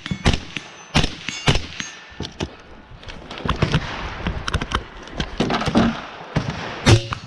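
Rifle shots fired one after another at steel targets, with the steel plates clanging and ringing after hits. The shots come about half a second to a second apart. A spell of rustling movement falls in the middle, and the last shots near the end leave a clear ringing.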